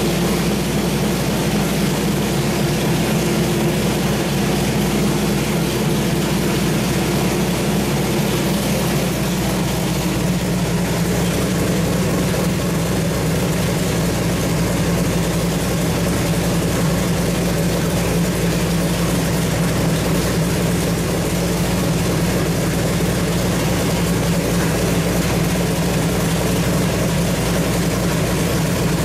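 Small-block Chevrolet 383 stroker V8 running on an engine dyno, holding a steady speed with an even, unbroken engine note.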